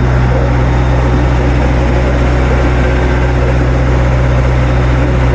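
Generator engine running steadily at close range: a loud, even hum with a strong low drone and no change in speed.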